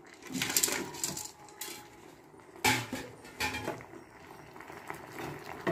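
Steel bowl clattering and scraping against a pan as fried cauliflower florets are tipped out of it into the gravy: several short knocks and scrapes, the sharpest about two and a half seconds in.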